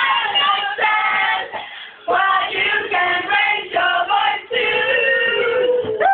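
A group of girls singing together in unison, loud and unaccompanied-sounding, in short phrases with a brief pause about two seconds in and a long held note near the end.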